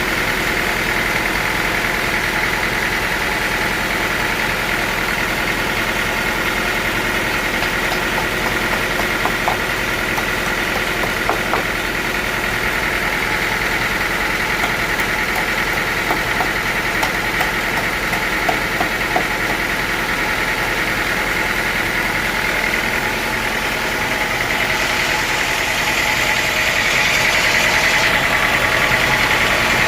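Sawmill saw machinery running steadily with a high whine, a few light knocks in the middle, growing louder near the end as the blade takes up the wood.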